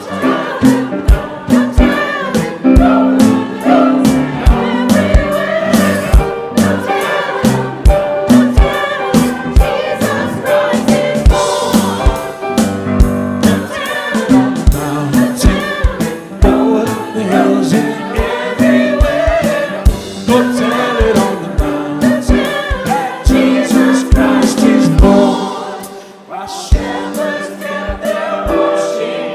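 Church choir singing an upbeat gospel song with a steady drum beat underneath.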